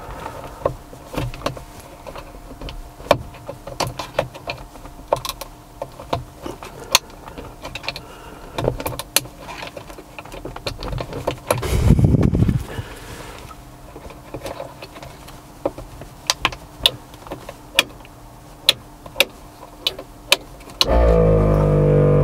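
Sharp plastic clicks and taps of rocker switch covers on an sPod switch panel being pried off with a screwdriver and snapped onto the switches, with a louder knock about halfway through as the rear air locker switch cover is pressed home. Near the end there is a brief loud electric-motor-like hum that falls in pitch.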